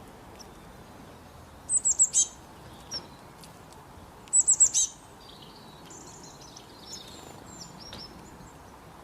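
Small birds chirping: two loud runs of four or five quick, high chirps, about two seconds in and again about four and a half seconds in, then softer high twittering over a faint steady hiss.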